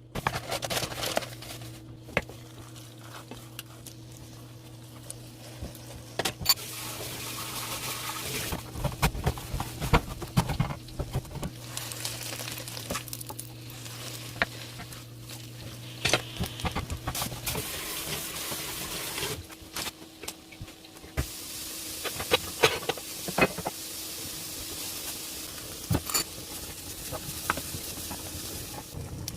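Home kitchen cooking sounds: a steady hiss that sets in a few seconds in, drops away about two-thirds of the way through and returns, with scattered clinks and knocks of utensils over a low hum that stops partway.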